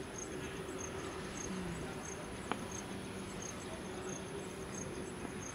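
Insect chirping: short high-pitched pulses repeating evenly about twice a second over a steady outdoor hum, with a single sharp click about two and a half seconds in.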